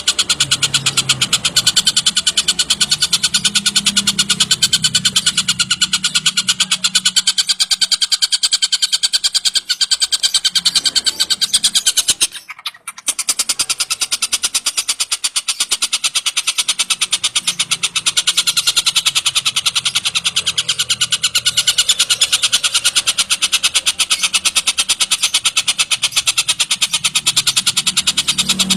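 A tengkek buto kingfisher calling non-stop in a rapid, even chatter of many short notes a second. The chatter breaks off briefly about halfway through, then resumes.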